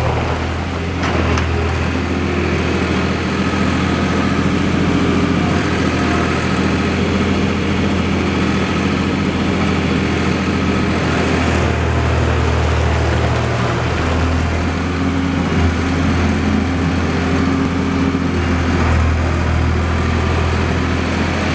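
New Holland LX885 skid steer's diesel engine running steadily, its note shifting slightly about two-thirds of the way through.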